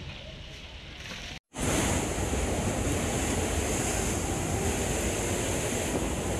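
Faint outdoor background noise for about a second and a half, then, after a short dropout, waves breaking on a sandy beach with wind rumbling on the microphone, much louder.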